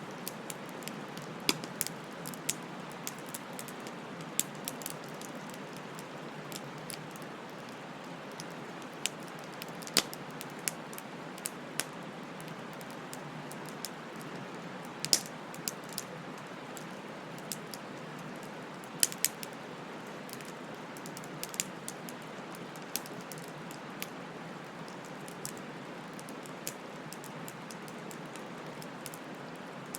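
Wood fire crackling: a steady hiss of burning with irregular sharp pops and snaps scattered throughout, a few of them louder than the rest.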